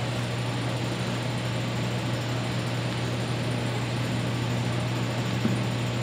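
Steady low mechanical hum with an even hiss, unchanging throughout.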